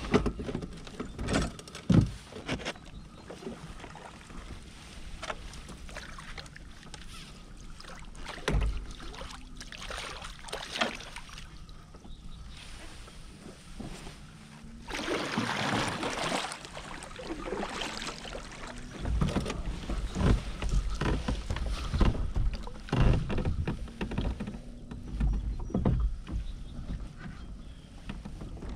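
A kayak being paddled: a double-bladed paddle dipping and splashing in the water, with irregular knocks of the paddle against the kayak's hull. There is a longer burst of splashing about halfway through and a run of knocks and thumps later on.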